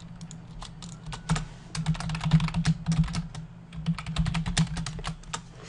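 Typing on a computer keyboard: quick, uneven keystrokes, a few scattered clicks at first, then faster runs from about two seconds in.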